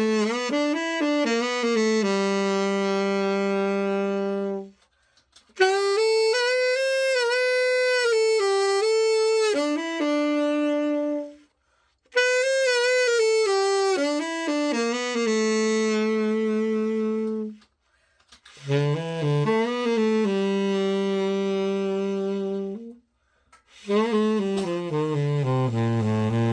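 Selmer Mark VI tenor saxophone played solo after a full overhaul: a slow melody in about five phrases with short breaks between, several phrases ending on a long held low note.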